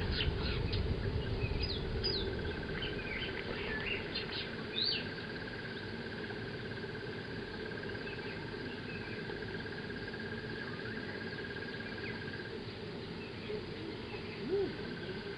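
Wild birds chirping briefly and repeatedly in the first few seconds, over a steady high insect trill that breaks off near the end and starts again, and low background noise.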